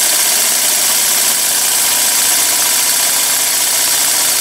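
Small vertical model steam engine running steadily on compressed air, its exhaust a continuous hiss, belt-driving a small model dynamo.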